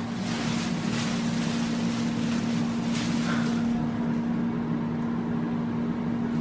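OMORC 6-quart air fryer running mid-cook: its fan gives a steady hum with an airy hiss, which thins out about four seconds in.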